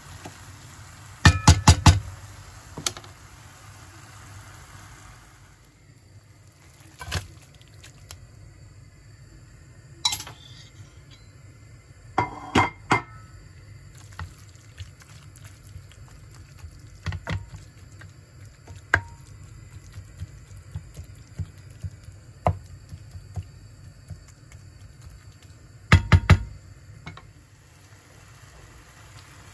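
Kitchen utensils clinking and knocking against cookware: short runs of several quick, sharp clinks near the start, in the middle and near the end, with scattered single clicks between them, over a steady low hum.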